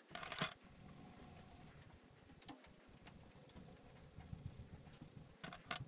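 Colored pencils being handled at the drawing desk: a short scratchy rustle just after the start, a single light click about two and a half seconds in, and two quick clicks near the end.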